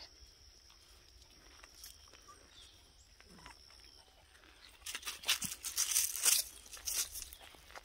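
Loud crunching and rustling of dry fallen leaves underfoot for about two seconds near the end, as the walker and the pulling dog move through the leaf litter. Before that, a faint steady high-pitched tone and light rustling.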